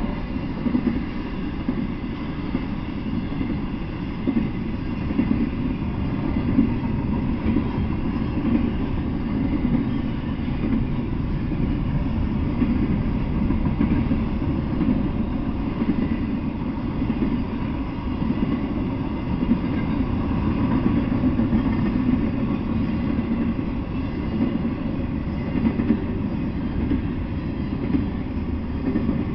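Intermodal freight train of trailer and container flatcars rolling past at steady speed: a continuous low rumble of wheels on rail with no breaks.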